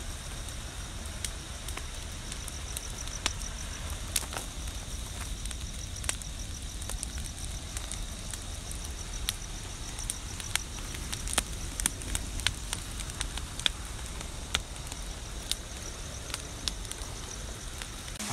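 Bonfire of dry sticks burning, crackling with irregular sharp pops over a low steady rumble.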